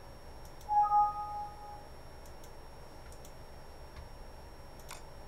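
A few computer mouse clicks, spaced apart, over low room noise. About a second in, a short two-tone electronic beep lasting about a second is the loudest sound.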